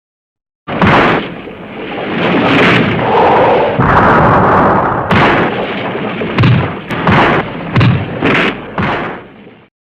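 Showa-era kaiju-fight sound effect: a sudden start of heavy explosions and crashing that carries on for about nine seconds, with a run of sharp impacts roughly every half second in the second half, then stops abruptly.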